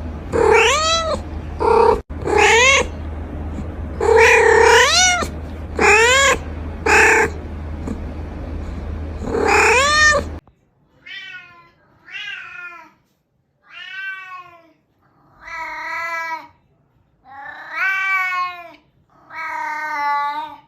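Domestic cat meowing repeatedly, about seven loud meows over a steady low hum. About halfway through, the sound changes abruptly to six softer, cleaner meows, some wavering in pitch.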